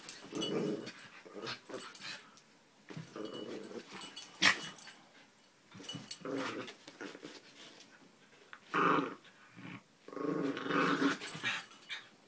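Two small grey dogs play-fighting, growling in repeated bouts of about a second each, loudest near the end. One sharp knock about four and a half seconds in.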